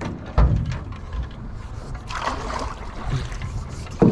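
Paddles dipping and splashing in the water beside a small rowboat, with one sharp knock about half a second in.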